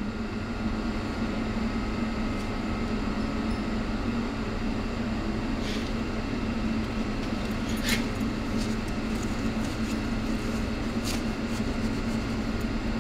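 Atlas marine engine being turned over slowly by an electric motor and reduction gear, not firing: a steady mechanical hum, with a few light clicks about six, eight and eleven seconds in. The engine is being motored to work out its rough spots while the oil pump lubricates the internals.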